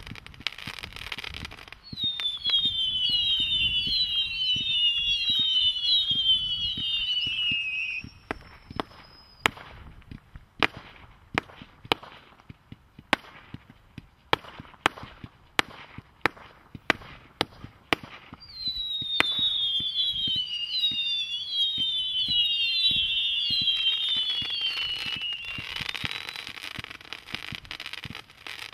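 Master of the Universe firework firing: many overlapping whistles, each falling in pitch, then a run of single sharp bangs about a second apart, then another burst of falling whistles that gives way to crackling near the end.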